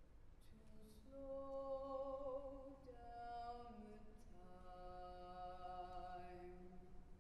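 Youth vocal group singing a cappella in close harmony: soft, sustained chords that swell about a second in and move to new chords a few times.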